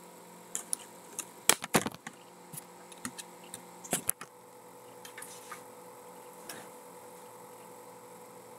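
Scattered light clicks and knocks, about a dozen in the first four seconds and only a few after, over a faint steady electrical hum.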